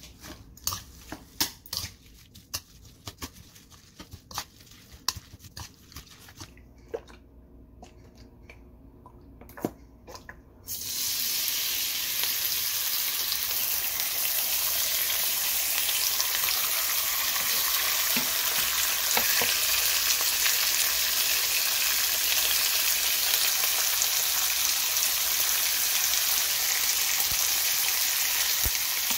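Metal chopsticks clicking and scraping against a stainless steel bowl as chopped chamnamul is mixed into pancake batter. About eleven seconds in, this gives way suddenly to the steady, loud sizzle of thin pork slices frying in a hot non-stick pan.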